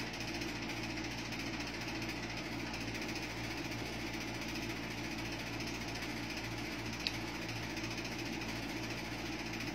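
Electric stand fan running: a steady motor hum and whir of the blades, with one faint short tick about seven seconds in.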